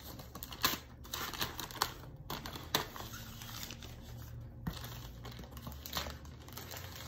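Scissors cutting and tearing open a parcel's printed outer wrapping, with crinkling of the wrapping and a series of irregular sharp snips and clicks.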